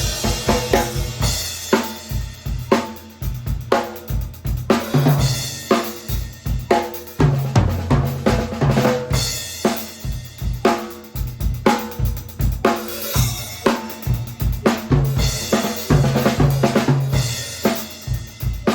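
A drum kit playing a continuous groove with fills, built around a 14 x 8 inch, 3/4-inch-thick hard maple stave-shell snare drum, which is most likely tuned to a medium tension. The snare's strikes and rimshots sit over bass drum, hi-hat and cymbals.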